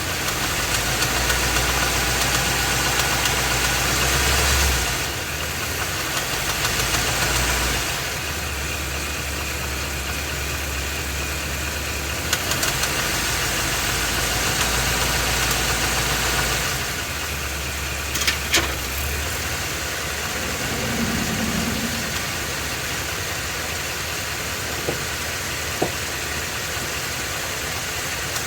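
Ford 7.3-litre Godzilla gasoline pushrod V8 running with an abnormal internal noise, its level rising and falling several times. The fault was not cured by the dealer and the engine is being replaced. A few sharp clicks come near the end.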